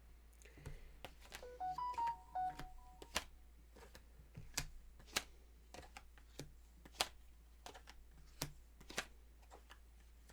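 A quick run of short electronic beeps at a few different pitches, like phone key tones, between about one and a half and three seconds in. Scattered sharp clicks and taps follow.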